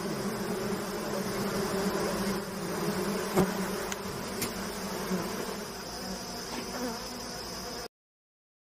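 Honeybees buzzing around their wild comb in a steady drone, with one sharp click about three and a half seconds in. The sound cuts off suddenly shortly before the end.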